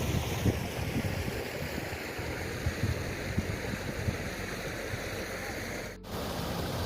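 Steady noise of flowing river water, with wind buffeting the microphone in low gusts; the sound drops out for an instant about six seconds in.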